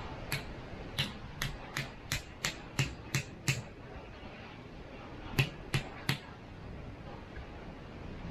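A series of sharp knocks, about three a second for roughly three and a half seconds, then three more after a pause of about two seconds.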